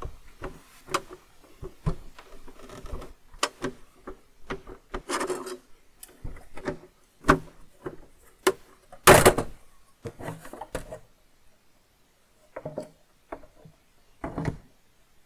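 Plastic top cover of an Apple ProFile hard drive case being worked loose and lifted off: scattered knocks, rubs and scrapes of plastic against the chassis, the loudest knock about nine seconds in.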